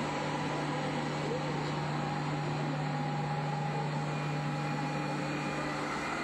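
Steady hum and hiss of the International Space Station's cabin ventilation fans and equipment, with a constant low hum and a few faint steady tones. Near the end the low hum drops out and the hiss shifts higher, as the noise of one module gives way to the next.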